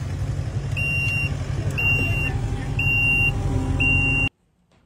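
Kubota SVL compact track loader's diesel engine running steadily while its reversing alarm beeps four times, about once a second. The sound cuts off abruptly near the end.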